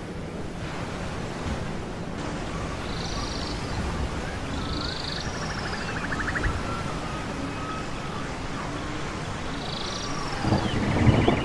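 Steady wash of surf and wind with birds calling over it: short high calls several times, and a buzzy rattling call about four seconds in and again near the end. A louder rush of surf or wind comes in near the end.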